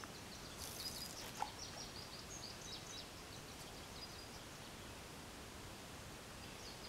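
Faint outdoor background hiss with small birds chirping in quick short notes, a run of them over the first few seconds and again near the end. One light tick about a second and a half in.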